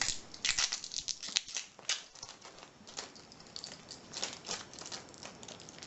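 Irregular crinkling and light clicks of packaging being handled around a tubular lock.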